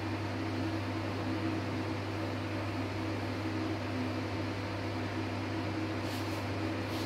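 Steady low hum with an even hiss, from a running electric motor. Faint light brushing strokes come about six seconds in.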